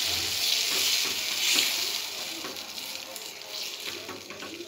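Boiled chana dal sizzling in hot mustard oil in a kadai, stirred with a silicone spatula that scrapes lightly through it. The sizzle gradually quietens.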